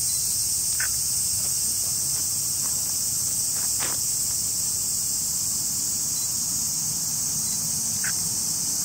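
Dense insect chorus: a steady, high-pitched, hiss-like droning with no breaks, over a faint low rumble, with a few small ticks.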